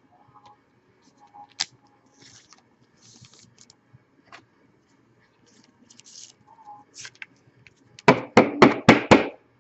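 Trading cards and their packaging being handled at close range: soft rustles and light clicks, then a quick run of about six loud sharp knocks and crackles near the end.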